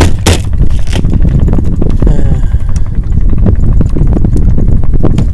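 A boat's motor running with a loud, steady low rumble, with scattered knocks and clatter over it.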